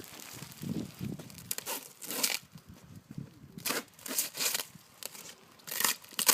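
Irregular rustling and crinkling, a run of short scraping noises at uneven intervals.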